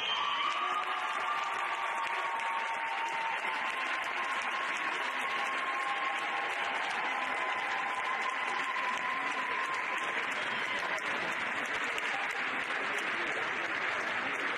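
Audience applauding loudly, with voices calling out over it; the applause breaks out suddenly and holds steady.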